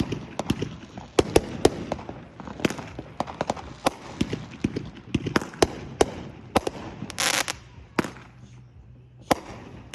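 Fireworks going off: an irregular string of sharp bangs and pops, with a longer hiss about seven seconds in.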